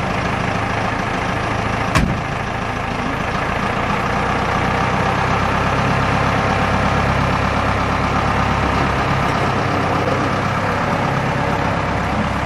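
Vintage flatbed truck's engine idling steadily, with one sharp click about two seconds in.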